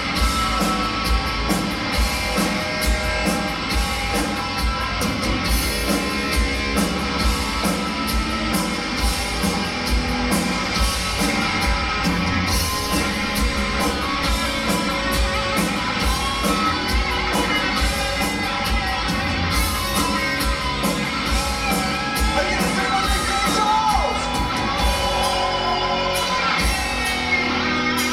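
Heavy metal band playing live: electric guitars, bass guitar and drum kit with a steady beat.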